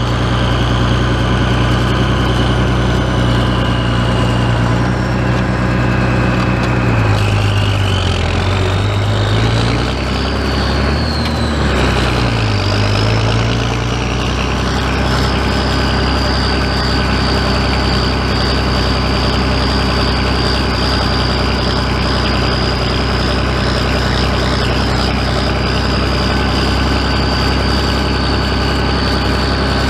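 Oliver farm tractor's engine running while the tractor drives along. Its speed dips and picks back up twice a little way in, then it runs steadily.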